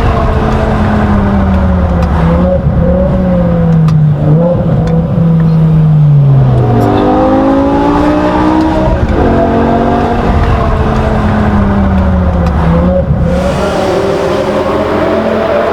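BMW M6's V10 engine and exhaust under way, the engine note rising and falling as it revs through the gears. About six seconds in, the pitch falls steadily, then picks up again.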